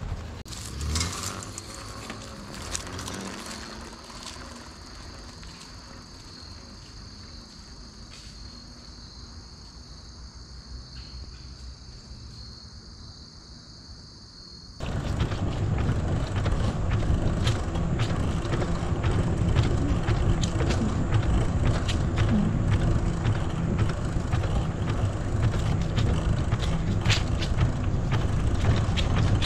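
Bicycle being ridden, with scattered ticks and mechanical rattles over a steady high-pitched buzz. About halfway through the sound jumps suddenly to a much louder, steady low rumble of riding noise, still with ticks.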